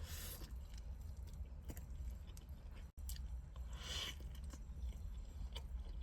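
A person chewing and biting into Dave's Hot Chicken fried chicken close to the microphone, with small wet clicks and two louder bites, one at the start and one about four seconds in. The sound cuts out for an instant near the middle.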